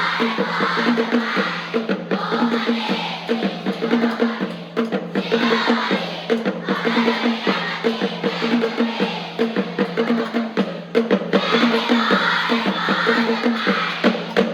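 Upbeat music with a fast, steady drum beat and rapidly repeated pitched notes.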